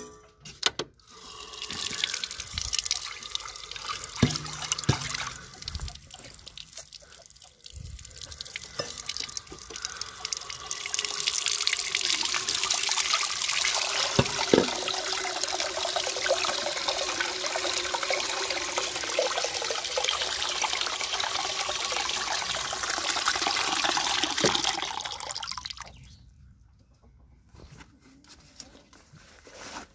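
Water from an IBC tank's outlet pipe pouring and splashing into a metal pot. The stream is uneven for the first ten seconds, then runs full and steady, and is shut off a few seconds before the end.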